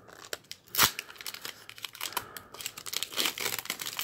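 Plastic-foil wrapper of a Pokémon trading card booster pack crinkling and crackling as it is torn open by hand, with one sharp crackle a little under a second in and busier crinkling near the end.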